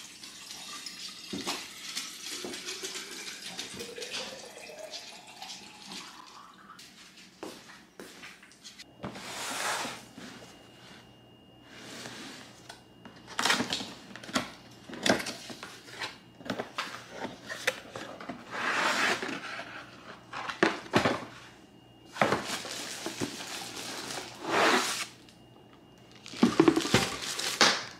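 Water running from a tap into a container, its pitch climbing steadily as the container fills. After that the tap runs in a series of short bursts, as in rinsing or washing.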